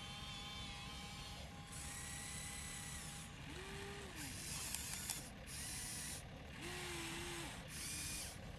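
Huina 1593 RC excavator's small electric gear motors whining in a series of short start-stop spurts as the boom, stick and bucket move. Two sharp clicks come about halfway through.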